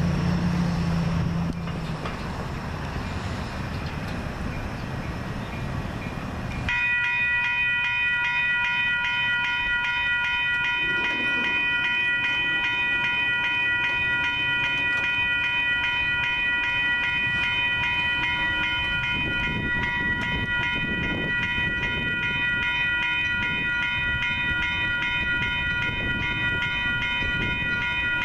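Railroad grade-crossing warning bells switching on suddenly about a quarter of the way in and ringing steadily, as the crossing activates for an approaching Metra train.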